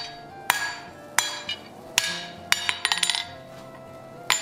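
Hand hammer striking hot steel bar stock on an anvil, half on and half off the anvil edge, to forge a notch for box jaw tongs. Four evenly spaced blows, then a quick run of lighter taps, then one more hard blow near the end, each blow leaving a metallic ring.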